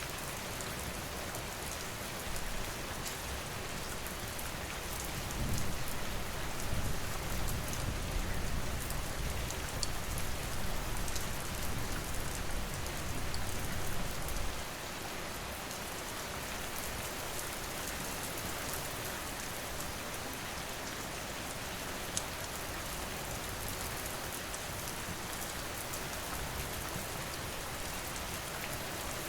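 Steady rain falling, with scattered faint clicks. A low rumble rises about five seconds in and cuts off suddenly about fifteen seconds in.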